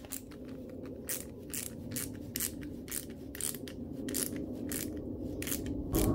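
Ratcheting wrench clicking as a nut is tightened on a threaded rod, about two clicks a second, over a steady low hum.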